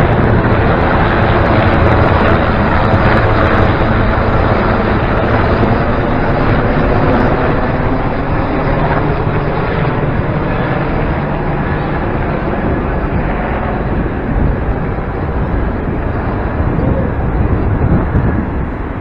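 Steady roar of military display aircraft flying over, slowly fading.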